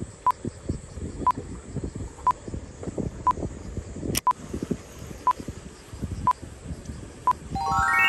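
Electronic beeping: one short, high beep every second over low rumbling noise. A sharp click comes about halfway through, and a quick rising run of tones starts near the end.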